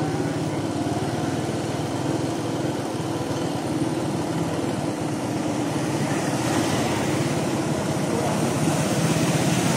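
Motorcycle engine running steadily while riding through shallow floodwater, with a constant hiss of tyres cutting through water that grows a little louder in the second half.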